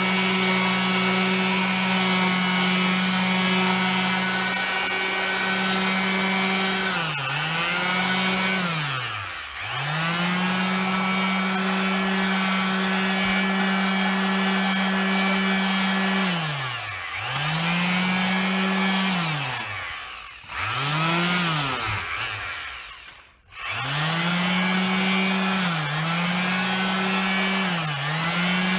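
Electric orbital sheet sander running against the edges of an oak board: a steady motor hum with a rasping hiss on top. The pitch sags and recovers several times, and about two-thirds through the sander stops and starts again.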